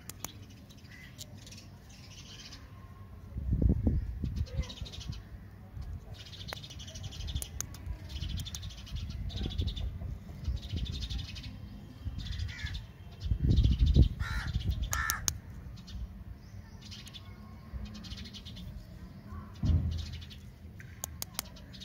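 Birds calling repeatedly, short harsh calls again and again, with a few short low rumbles.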